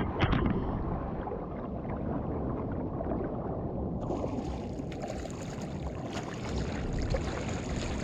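Water sloshing and lapping around a kayak on a building swell. About halfway through, a hissing wash of breaking water comes in over it.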